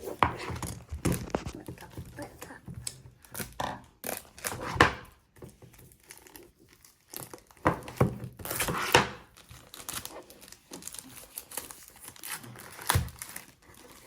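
Shipping box being torn open by hand: packaging ripping and crinkling in irregular pulls, with a few knocks. The longest, strongest rips come about five and nine seconds in.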